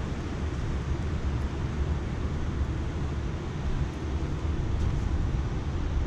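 Wind buffeting the microphone: a steady, low, unbroken rumble with no distinct events.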